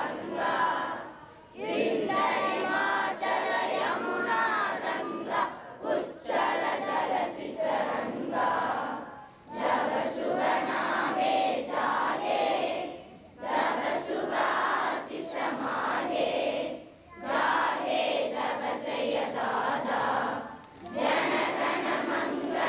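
A crowd of voices chanting or shouting together in unison, in repeated phrases separated by brief breaks about every four seconds.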